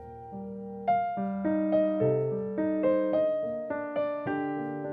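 Background music: a slow solo piano melody, single notes struck one after another, each fading away.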